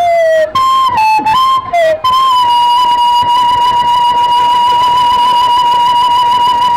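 Hmong raj nplaim, a free-reed bamboo pipe, played solo: a few short notes that slide downward, then one long held high note with a slight waver.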